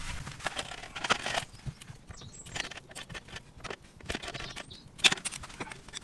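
Handling noise of work on an outdoor socket: scattered light clicks, knocks and rustles, with one sharper knock about five seconds in.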